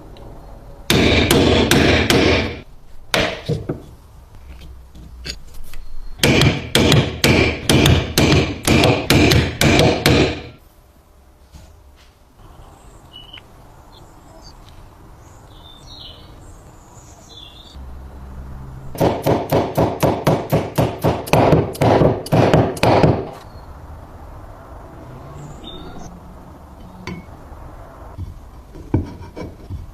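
Hammer blows in three bursts of rapid, even strikes, about five a second, during work on a stapler's parts.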